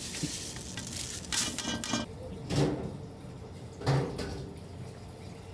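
Kitchen work sounds: pots and utensils knocking and clinking a few times, a quick cluster about a second in and two single knocks later, over a faint steady hum.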